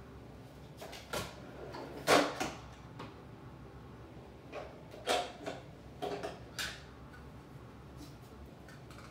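Scattered knocks and clatter of craft paper punches being picked up and sorted through, about a dozen sharp hits over several seconds, the loudest about two seconds in.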